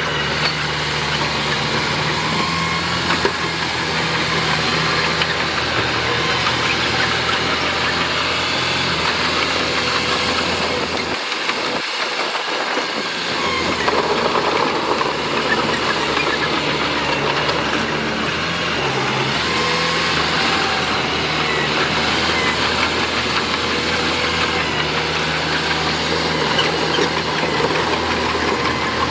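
Diesel engine of heavy earthmoving machinery running steadily with a low rumble and mechanical clatter. The low rumble briefly drops out about twelve seconds in.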